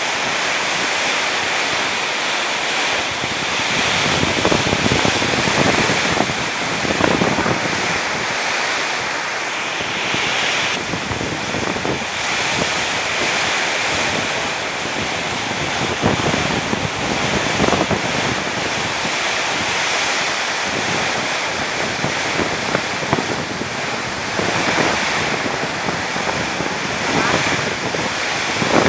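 Strong storm wind rushing and gusting, buffeting the microphone, swelling and easing every few seconds.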